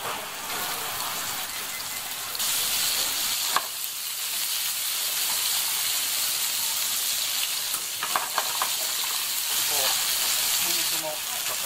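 Pork steak sizzling in hot oil in a frying pan, a steady hiss that gets louder about two seconds in. A few light clicks of tongs against the pan as the pork and garlic cloves are moved.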